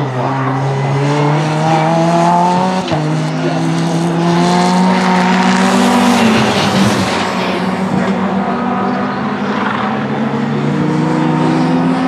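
Mitjet 2.0 race car's Renault 2.0-litre four-cylinder engine accelerating hard. The revs climb, drop at an upshift about three seconds in, and climb again. The sound is loudest as the car passes about halfway through.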